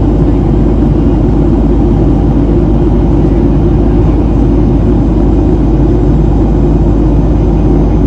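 Steady cabin noise inside a Boeing 737-700 airliner: the deep, even rumble of its CFM56-7B turbofan engines and the airflow over the fuselage, with no change in level.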